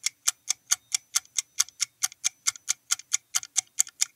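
Clock-style ticking of a quiz countdown-timer sound effect: evenly spaced sharp ticks, about four and a half a second.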